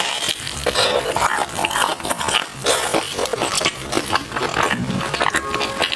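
Close-miked chewing of sticky glutinous rice food: a dense, irregular run of wet mouth smacks and squelching bites.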